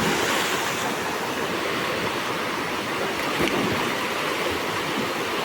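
A waterfall's steady rushing, an even wash of falling water.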